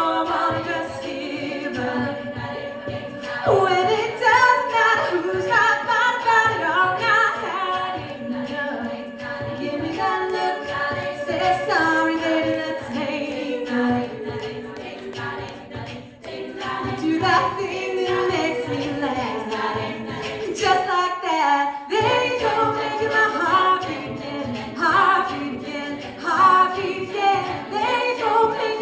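Female a cappella ensemble singing a pop-country song: a lead voice over close backing harmonies, with no instruments, and a low pulsing line underneath. The voices break off briefly about three-quarters of the way through, then come back in.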